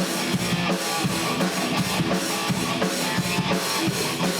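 Background music: a band-style track with drum kit and guitar playing a steady beat.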